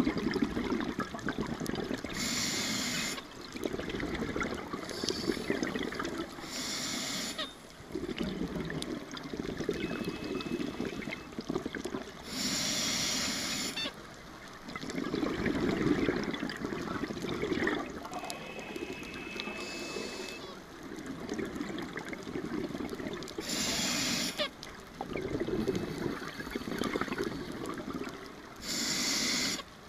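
Scuba diver breathing through a regulator underwater: short hissing inhalations alternating with longer spells of bubbling, gurgling exhalation, several breaths in a row.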